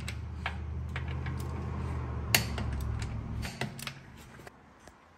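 Sharp clicks and taps of tools working, over a low steady hum that stops about three and a half seconds in; the loudest click comes a little past two seconds.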